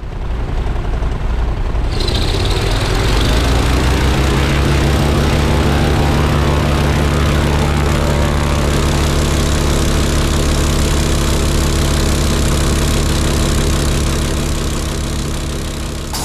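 Legal Eagle XL ultralight's zero-turn-lawnmower-type engine, fed by a single Mikuni carburettor, driving its propeller through a reduction drive. It revs up over the first few seconds, then runs steadily at high power, easing off a little near the end.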